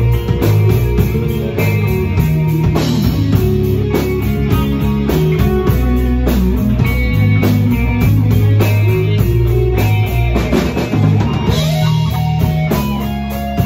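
Rock music played on guitar and drum kit, with a steady driving beat.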